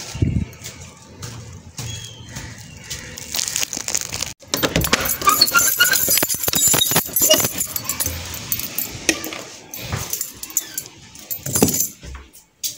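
Metal door latch and lock being worked by hand: a dense run of sharp rattling clicks starting about four seconds in and lasting about five seconds.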